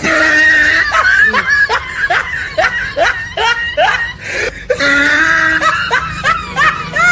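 High-pitched laughter: a quick run of short rising 'ha's, about three a second, which cuts off suddenly at the end.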